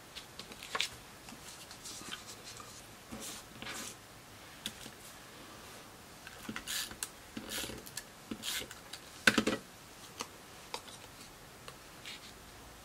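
Scrapbook paper embellishments being handled and placed on a layout on a cutting mat: scattered light clicks, taps and short paper rustles, with one sharper tap about nine seconds in.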